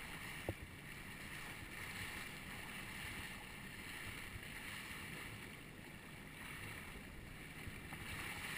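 Steady wind and sea noise around a small rubber boat on open water, with one short knock about half a second in.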